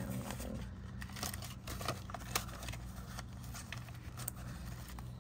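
Paper banknotes being handled: US dollar bills rustling and crackling in irregular crisp flicks as they are sorted, unfolded and flattened by hand, over a steady low hum.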